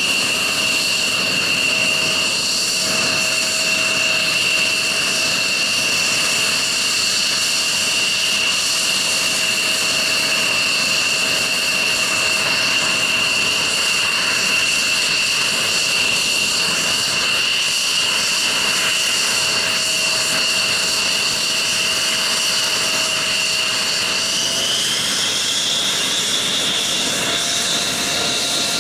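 F-16 fighter jet engine idling with a steady high whine over a rushing roar; near the end the whine rises in pitch as the engine spools up.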